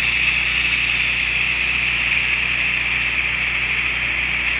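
Pressure washer spraying: a steady hiss of the water jet over the even low hum of the machine's engine and pump.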